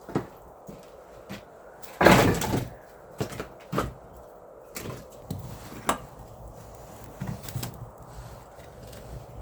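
Scattered knocks and clunks, with a louder scraping clatter about two seconds in.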